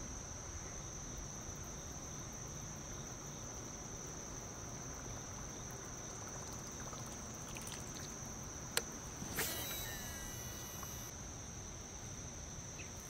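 Insects calling in a steady chorus: one unbroken high-pitched drone, over a low even hiss. A sharp click comes about two-thirds of the way in, followed half a second later by a brief noisy burst.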